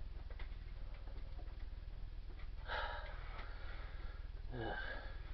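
Low steady electrical hum with a few faint clicks, a breath about three seconds in and a short murmured voice near the end.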